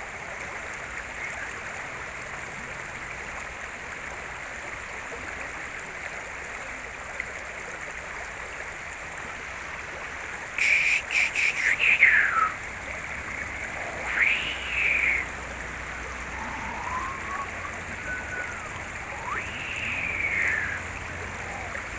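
River water flowing steadily, with a few short sharp sounds a little before halfway and several brief rising-and-falling calls in the second half.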